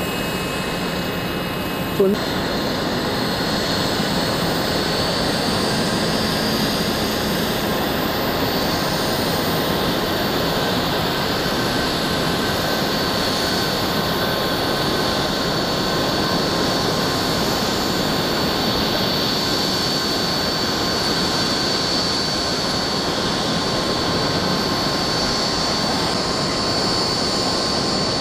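A twin-engine jet airliner's turbofans run at low, taxiing power: a steady rush with a thin high whine held on one pitch. There is a brief sharp knock about two seconds in.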